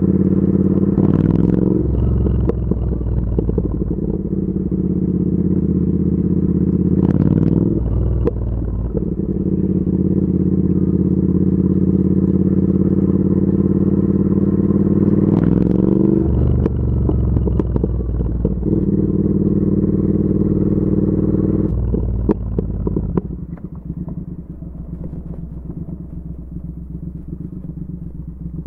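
Triumph Speed Twin 1200's 1200 cc parallel-twin engine running steadily under way. The note breaks briefly three times as gears change. About 23 seconds in it drops to a quieter, low-revving run as the bike slows almost to a stop.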